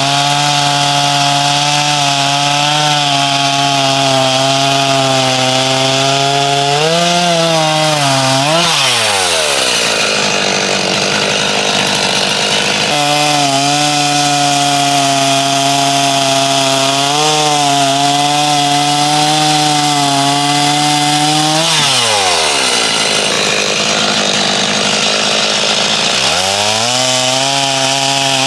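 Stihl chainsaw running at high revs, its pitch dropping sharply twice as it bogs down under load in the cut, then coming back up to full speed.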